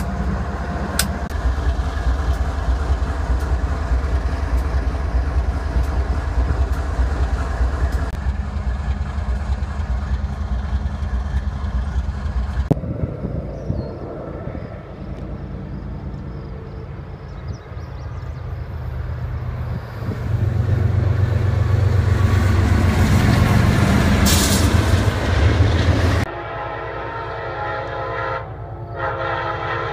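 BNSF diesel freight locomotives idling with a steady low hum. After about 13 s a quieter rumble takes over and swells loud for several seconds. Near the end a locomotive air horn sounds a multi-note chord in blasts as an Amtrak passenger train approaches.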